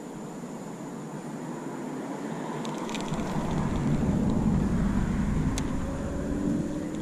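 A motor vehicle passing by: a low rumble that swells to its loudest about four seconds in and then fades. A couple of light clicks come along the way.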